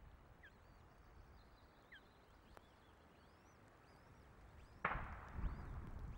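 Osprey chicks begging with many faint, thin, high peeps and a couple of short falling calls. About five seconds in, a sudden loud rush of wind hits the microphone and is followed by low buffeting rumble.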